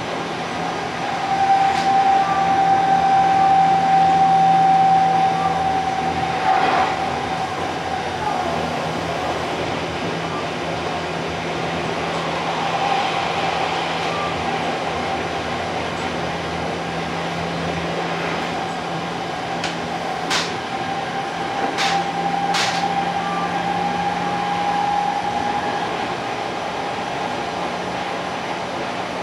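Odakyu 60000 series MSE Romance Car running, heard from inside its vestibule deck: a steady rumble of the moving car with a constant whine over it, swelling for a few seconds near the start. A few sharp clacks come about two-thirds of the way through.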